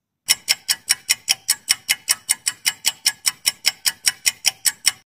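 Countdown-timer sound effect: rapid, even clock-like ticking, about five ticks a second, that starts just after the start and stops abruptly near the end. It marks the seconds counting down to the answer.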